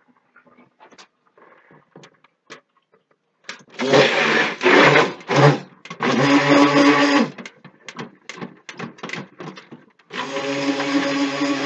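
Immersion (stick) blender mixing cold-process soap batter in a stainless steel pot. It is pulsed on and off in short bursts from about three and a half seconds in, then switched on again about ten seconds in and left running steadily. Light knocks and clinks of handling come before and between the bursts.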